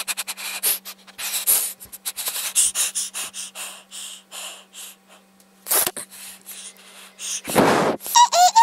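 A boy's voice and breath close to the microphone: a run of short breathy huffs and hisses with a few clicks, then a louder blast of breath near the end, followed by quick high-pitched squeaky vocal chirps.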